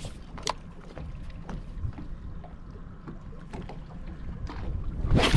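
Low steady rumble on a small fishing boat during a stick-bait cast and retrieve, with a few faint clicks. A loud rushing burst comes near the end.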